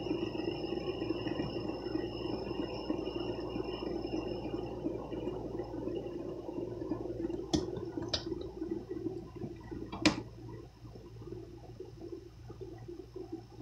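Fidget spinner whirring on its bearing as it spins flat on a hard surface, slowly losing speed and getting quieter; a thin high whine in it fades out partway through. Three sharp clicks come in the second half, the last the loudest.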